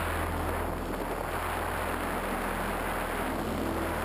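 Ambient electronic music: a steady hissing, rain-like wash over low held synth notes that shift pitch near the end.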